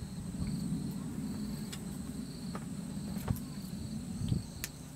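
Crickets chirping in an even, repeating pulse over a steady high insect tone and a low rumble, with a few sharp small clicks from crimping pliers and rig tackle being handled as a crimp is squeezed onto the boom line.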